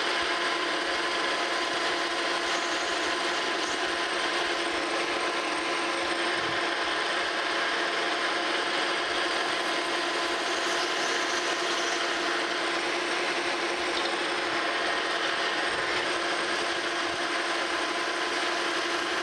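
Monarch Model K metal lathe running under power while a cutting tool, fed in by hand, turns a shoulder into a steel arbor. The sound is steady and unchanging: an even hiss of cutting with a few held tones from the machine.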